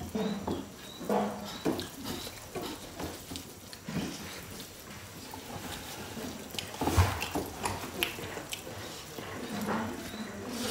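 Hand-eating of rice with dal from metal plates: wet squelching as fingers mix and squeeze the rice, with chewing and lip-smacking. A dull thump comes about seven seconds in.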